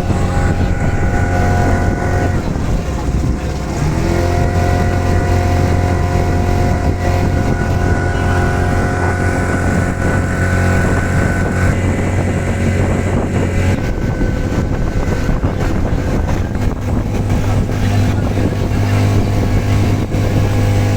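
Motorboat engine running steadily with a low drone, its note shifting a few times.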